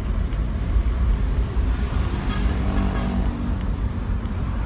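A car driving along a street with a side window open: steady low road and engine rumble. About two seconds in, a passing vehicle's engine note briefly rises over it.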